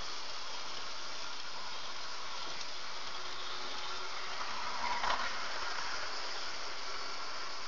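H0-scale model train, a pair of F45 locomotives with a string of cars, running along the track over a steady hiss; the running noise swells to a peak about five seconds in as it passes close, then fades.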